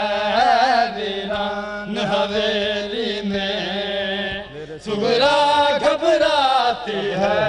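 Male voices chanting an Urdu noha, a lament for Karbala, in long wavering melismatic phrases over a steady held low note; the chant dips briefly about two-thirds of the way through and then comes back in full.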